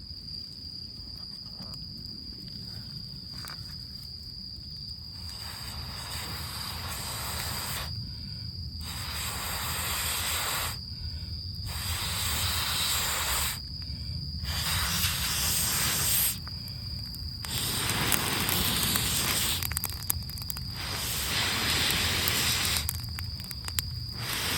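Someone blowing hard on smouldering damp kindling to coax it into flame: long breathy rushes of air of about two seconds each, repeated about seven times with short pauses for breath, starting about five seconds in. Crickets trill steadily throughout.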